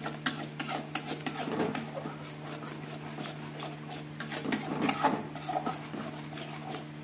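Metal ladle stirring and scraping thick masala paste around an aluminium kadai, a quick irregular run of scrapes and taps against the pan, over a steady low hum.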